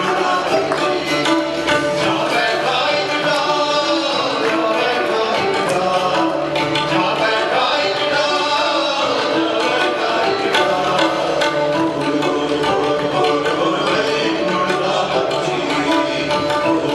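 Live band music: several sustained pitched instruments over a steady, dense percussion rhythm, with no break.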